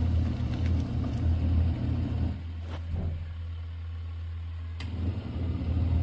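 Portable mini washing machine running its wash cycle: the wash motor gives a steady low hum under water churning in the tub. The hum eases a little about two seconds in and picks up again near the end.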